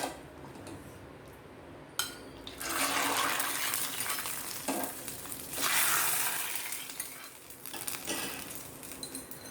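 A clink of the pan, then hot coconut-oil tempering with mustard seeds and curry leaves hitting the tomato rasam and sizzling in two spells of hiss, the second about three seconds after the first, fading away near the end.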